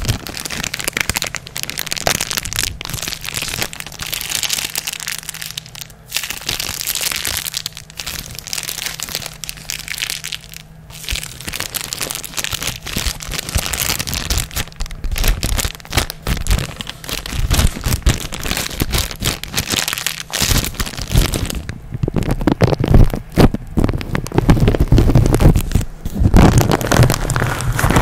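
Thin clear plastic crinkled and crumpled right against a microphone, a dense crackling throughout. In the second half heavy low bumps join in as the hands handle the microphone, and near the end the fingers rub and scratch its metal grille.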